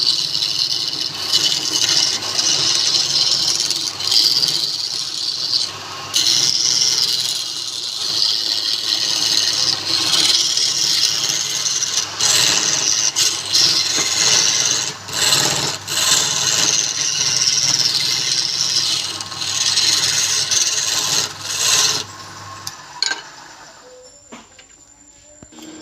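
A tool rubbing against wood spinning on a woodturning lathe: a steady rasping hiss with short breaks, over the low hum of the lathe. It stops near the end, leaving it much quieter.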